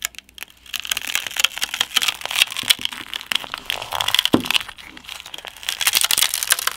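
Crinkling, crackling and tearing as the Oppo Find N's flexible inner display and its rubberized metal mesh backing are ripped and peeled apart by hand, with one sharper snap a little past four seconds in.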